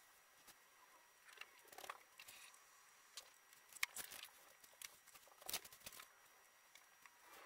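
Faint, scattered light clicks and taps from handling a paint-covered canvas with a gloved hand, with a sharper click about four seconds in, against near silence.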